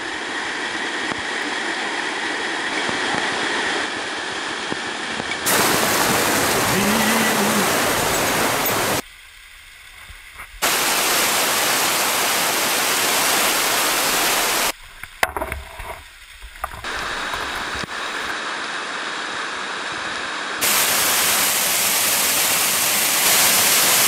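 Rushing water of a mountain waterfall cascade, a steady noisy rush that jumps in loudness several times where takes change, dropping much quieter for about a second and a half near the middle.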